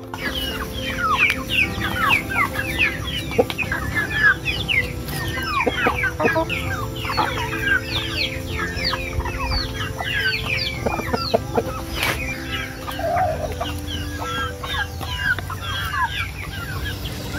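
A flock of free-range chickens calling: a dense, continuous run of short high chirps and clucks, several a second, with steady background music underneath.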